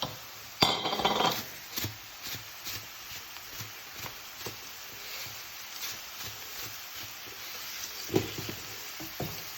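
Onions and spices frying in oil in a pan with a faint steady sizzle, stirred with a utensil scraping against the pan. There is a louder scrape about a second in and scattered taps and knocks after it.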